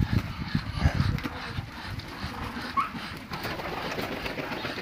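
Ducks' wings flapping in a quick run of beats as the flock flies down into the yard, with one short rising call about three seconds in.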